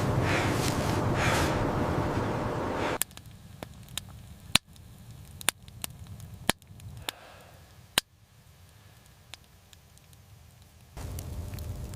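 Loud steady rushing noise, like wind, cuts off abruptly about three seconds in. A quiet stretch follows with about six sharp, separate knocks a second or so apart, like chopping or striking wood. Near the end a steady noisy background comes back in.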